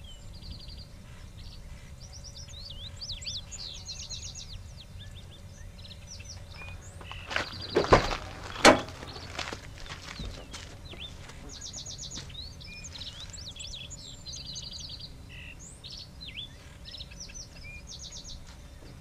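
Songbirds chirping and singing in repeated short trills, over a low outdoor rumble. A few sharp knocks come close together about eight seconds in.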